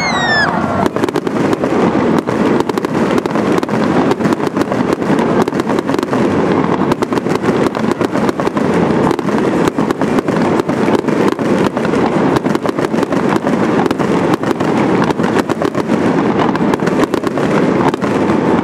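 Fireworks going off without a break: dense, rapid crackling and popping from aerial shells and red fountains fired over the water. A short falling whistle sounds right at the start.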